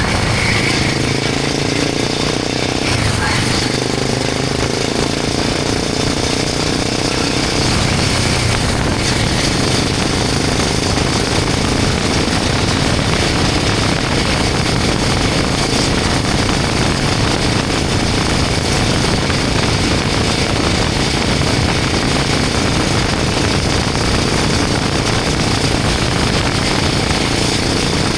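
Royal Enfield Himalayan 450's single-cylinder engine running through a Norifumi Long aftermarket exhaust with its dB killer fitted. The engine note shifts in pitch over the first several seconds, then holds steady.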